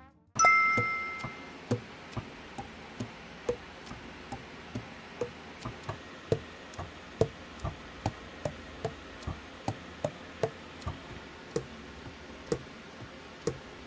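Even ticking, a little over two clicks a second, over a faint hiss, after a brief ringing tone at the very start.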